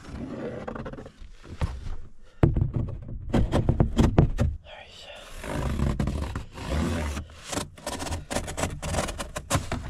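Irregular handling noise from hands-on work: a run of knocks, clicks, scrapes and rustling as materials are moved and handled for a mounting template, busiest from about two seconds in.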